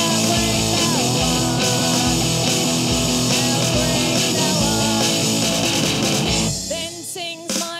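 A live punk rock band playing, with electric guitar and drums over a steady beat. Near the end the band drops out for about a second, leaving a few wavering notes, before the full sound comes back in.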